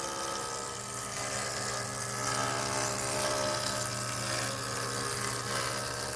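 Jointer running with a wooden rail fed across its spinning cutterhead, taking a light pass of about 1/32 inch: a steady motor hum under the dense hiss of the knives cutting wood.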